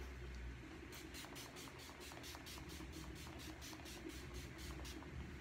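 Urban Decay De-Slick setting spray pumped in a rapid run of short, faint sprays, about four or five a second, starting about a second in, misting the face to set the makeup.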